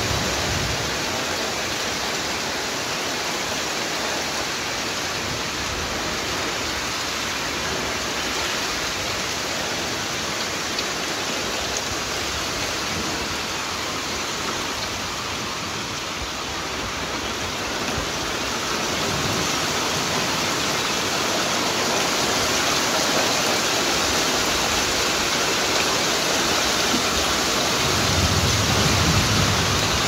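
Heavy downpour: a steady hiss of rain falling on trees and garden, growing louder a little past halfway, with a low rumble near the end.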